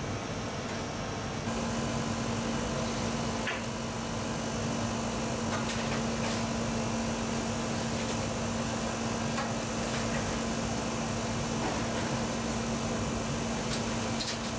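Steady whir of a convection oven's fan and kitchen machinery, with a steady hum that comes in about one and a half seconds in. A few light clicks and knocks as baking trays are handled.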